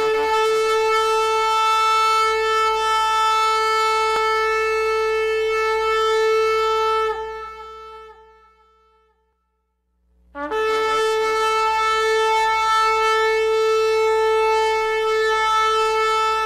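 Shofar blown in two long, steady blasts on one held note, each lasting about seven seconds. The first fades away about seven seconds in, and the second begins a few seconds later.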